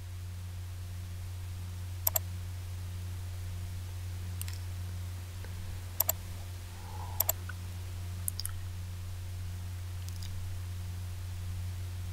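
Computer mouse clicking, a handful of sharp clicks spread out, several as quick double clicks, over a steady low electrical hum.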